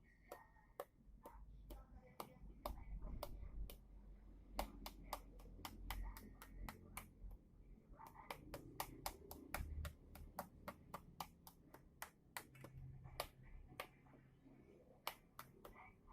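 A rapid, uneven series of sharp clicks or taps, about two to four a second, over a faint low rumble.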